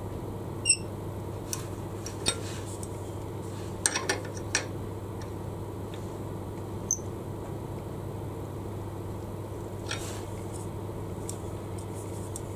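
A few light clicks and knocks as a wooden box blank is handled and shifted against the metal jaws of a lathe chuck to set it level, over a steady low hum.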